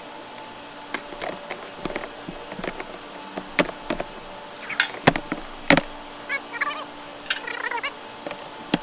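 Plastic push-pin retaining clips being pried out of a truck's bumper cover with a clip tool: a string of sharp separate clicks and snaps. Short high squeaky chirps come in the middle.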